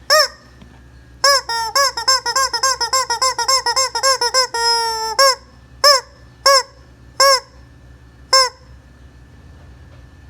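Squeaky rubber chicken toy being squeezed: one squeak, then a fast run of squeaks, a long held squeal, and several single squeaks spaced about a second apart.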